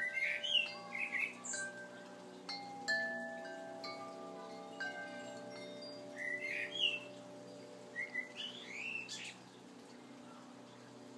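Wind chimes ringing, new notes struck every couple of seconds and left to hang and overlap. A bird chirps in quick rising calls at the start, around six seconds in, and again around eight to nine seconds in.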